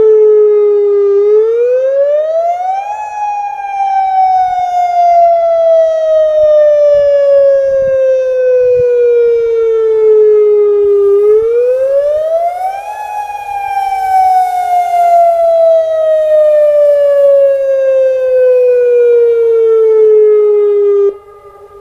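Federal Signal Modulator 6024B electronic outdoor warning siren sounding a loud sweeping tone for its monthly test. The pitch climbs quickly over about two seconds, then sinks slowly over about eight seconds. The cycle runs twice before the tone cuts off abruptly near the end.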